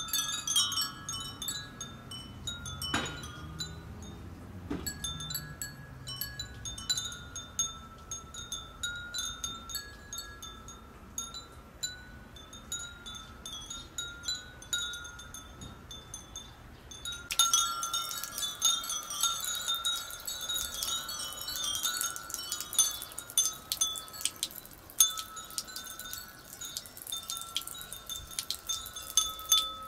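Many glass furin wind chimes tinkling in the breeze: scattered light, high rings that overlap, becoming busier and louder a little over halfway through as the wind picks up.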